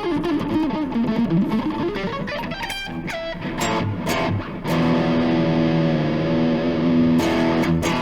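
Electric guitar playing a fast, chaotic symmetrical-shape lick. Quick runs of notes fall and climb again, a few short notes follow, then a held chord rings out with a slight waver from about five seconds in until near the end.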